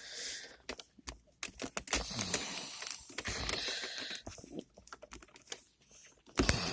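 Irregular small plastic clicks and rustling as the Volvo V70 handbrake gaiter and its console trim are pulled and worked loose by hand, with a louder cluster of clicks near the end.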